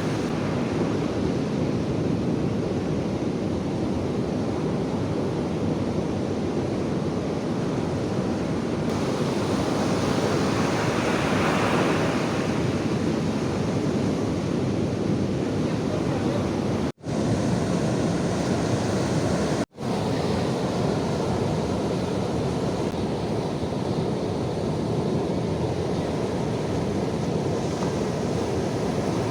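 Ocean surf washing onto a beach in a steady rush, with wind buffeting the microphone. The surf swells about ten seconds in, and the sound cuts out briefly twice.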